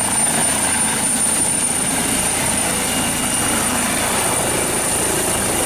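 Loud, steady mechanical whirring with a thin high whine, switched in and out abruptly like an edited-in sound effect.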